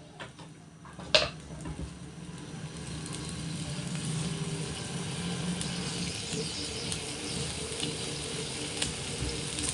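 A utensil clinks once against the pan about a second in, then food sizzles in the pan, the hiss building over the next couple of seconds and holding steady.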